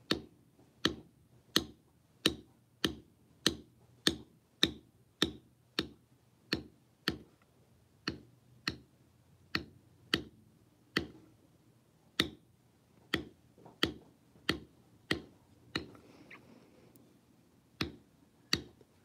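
Leather backgrounding tool struck with a mallet or maul, stamping the background texture into tooling leather in a steady run of sharp taps, about one and a half to two a second. The taps pause for a couple of seconds near the end, then start again.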